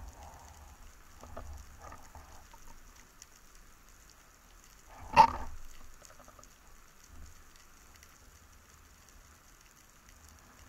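Underwater ambience on a breath-hold spearfishing dive: a faint steady hiss and low rumble with light crackling. About five seconds in comes one loud, short sound with a brief fading tail.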